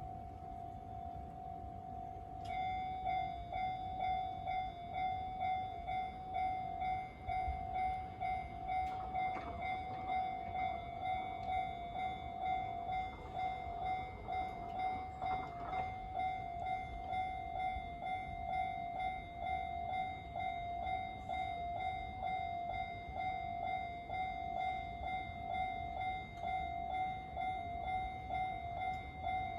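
Japanese railroad crossing warning bell ringing in a steady repeating rhythm, with a second, higher-pitched tone joining in about two and a half seconds in.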